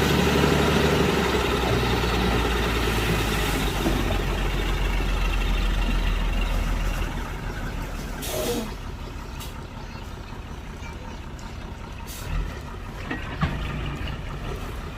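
Heavy diesel engine running loudly, then dropping away about seven seconds in, with a short burst of hiss a second later.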